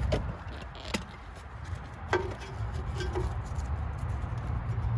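Sharp metallic clicks and taps as small brake hardware pins and clips are worked out of a Jeep Wrangler JK's rear caliper assembly, the loudest about two seconds in with a brief metallic ring. A steady low rumble runs underneath.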